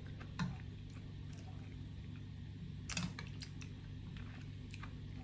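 Faint scattered clicks and ticks of eating, spoon or chopsticks tapping a bowl, over a low steady hum, with two louder clinks about half a second and three seconds in.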